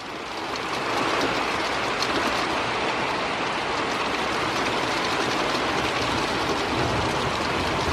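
Heavy thunderstorm rain pouring down as a steady, even hiss.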